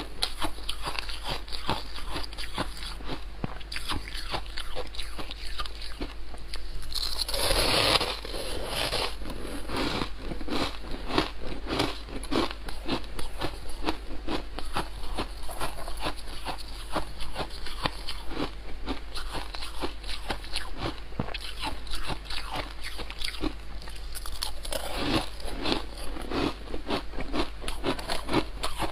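Soft, fluffy frost ice being bitten and chewed: dense, rapid crunching and crackling, with a louder crunching burst about seven seconds in.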